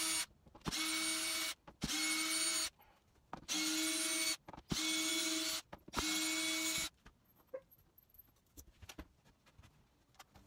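Cordless drill/driver backing screws out of seat hinges in short runs of about a second each, about six times, with a steady motor whine. After about seven seconds the drill stops and only light clicks of handling are left.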